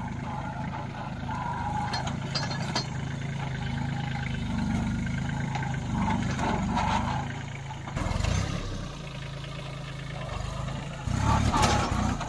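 Kubota A211N compact tractor's three-cylinder diesel engine running steadily as the tractor drives across a field with a cultivator hitched on. The sound swells louder briefly about eight seconds in and again, loudest, near the end.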